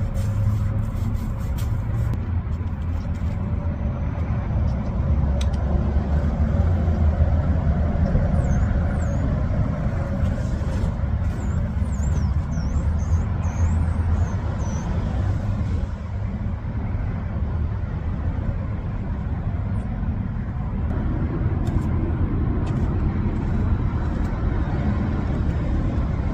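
A motor running steadily with a low rumble throughout.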